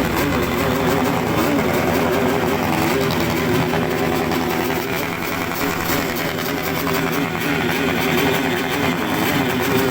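Motorcycle engines running through loud exhausts, a continuous engine sound whose pitch wavers slightly with the throttle.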